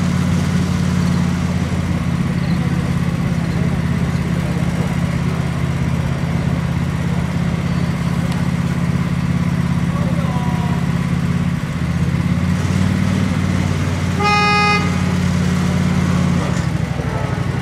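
Steady low drone of depot machinery running, its note shifting about twelve seconds in. A single short horn toot of about half a second comes around fourteen seconds in: a warning as the electric freight car is about to be moved off the traverser onto its track.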